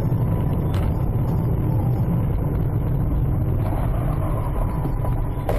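Steady low rumble of road and engine noise inside a car cruising at highway speed, as picked up by a dashcam microphone, with a faint high whine throughout. A sudden sharp crack sounds near the end.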